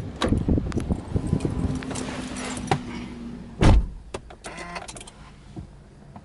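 Car door opened and someone climbing into the driver's seat of a Subaru Impreza hatchback, then the door shut with a single heavy thud a little past halfway. A few light clicks follow as the key goes in and the ignition is switched on.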